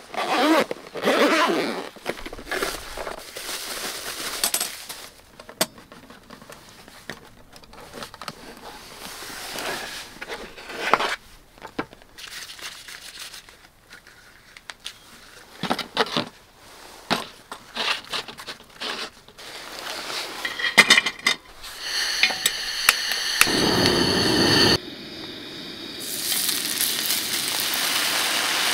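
Hands unpacking and setting up a Naturehike gas camp stove: a zippered hard case opened, then clinks and scrapes of the metal stove parts and the gas line being fitted. Near the end a steak sizzles steadily on a griddle.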